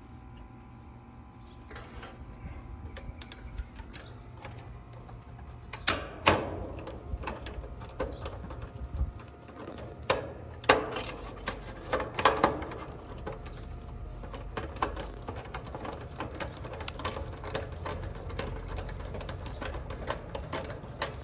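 Metal clicks and knocks of a nut driver turning the screw of the sheet-metal strap that clamps an AC dual run capacitor can to its bracket. A few louder knocks come about six, ten and twelve seconds in, then a run of quick light clicks.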